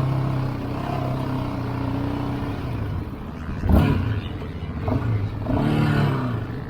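ATV engine running at a steady speed, then revving up and down in the second half. There is one sharp knock a little past halfway.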